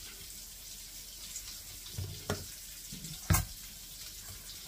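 Hamburger patties sizzling steadily in a frying pan, a soft high hiss, with two sharp knocks about two and three seconds in.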